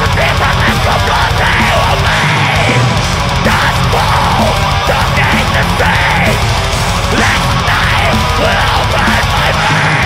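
Melodic death metal played live by a full band: distorted electric guitars, fast drumming and harsh growled vocals. The low end drops out briefly twice.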